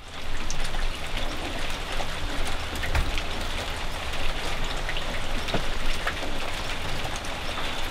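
Steady rain falling, an even hiss dotted with scattered drops ticking on hard surfaces.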